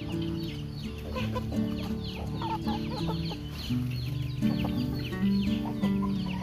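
Backyard chickens clucking, with many quick, high, falling peeps several times a second, over background music of held low notes.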